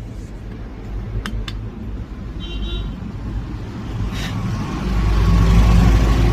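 A motor vehicle engine running with a steady low rumble that gets louder about five seconds in. There are two sharp clicks just over a second in and a short high beep like a horn at about two and a half seconds.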